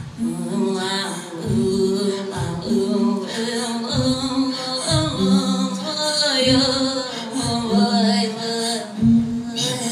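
Sami joik and Inuit throat singing performed together by two women's voices: a low voiced line that breaks off about once a second runs under a higher, wavering sung melody.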